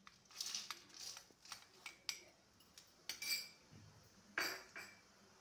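A metal spoon clinking and scraping against a small bowl and the rim of a metal kadai as mustard seeds, cumin, urad dal and chana dal are tipped into hot oil for tempering. The clinks come irregularly, with the sharpest ones just past halfway and near the end.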